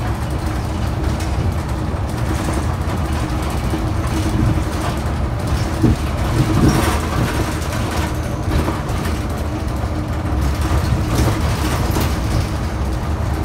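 Interior sound of a New Flyer XD60 articulated bus underway: a steady low rumble of drivetrain and road noise, with faint scattered rattles and a brief louder knock about six seconds in.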